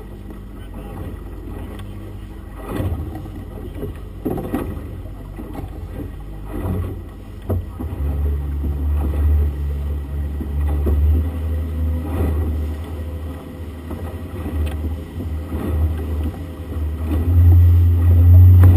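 Outboard motor running with the boat under way, over the rush of wind and water. Its low hum grows louder about eight seconds in and again near the end as the boat speeds up, and there are a few thumps in the first half.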